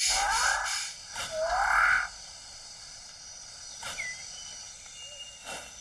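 Two loud, harsh calls from a bird of paradise, each about a second long with a rising sweep, followed by a few faint short whistles.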